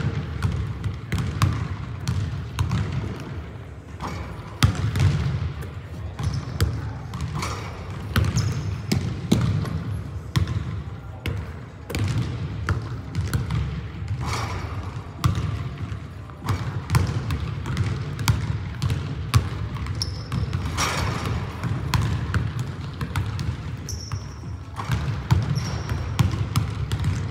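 Basketball being dribbled and bounced on a hardwood gym floor, a run of irregular thuds, with a few short high squeaks from sneakers on the court late on.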